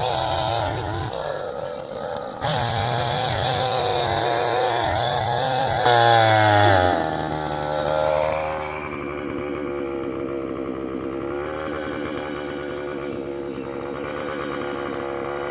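Husqvarna chainsaw running at high speed with a wavering pitch, as in a cut. About six seconds in it revs loudly, then falls back over a second to a steady idle that lasts through the rest.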